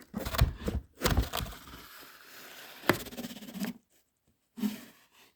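Scraping, rustling and knocking of wood being shoved and moved, with a sharp click about three seconds in and one short knock near the end.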